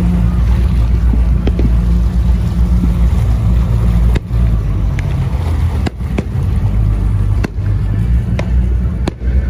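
Motorboat engine running steadily underway, with wind and water rushing past and a few sharp knocks.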